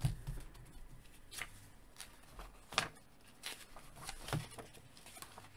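A few faint rustles and light taps of magazine pages being handled.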